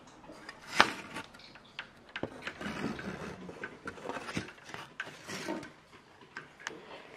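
Close handling noise at a window blind: a sharp click about a second in, then light knocks, rubbing and rattles of the slats and the camera.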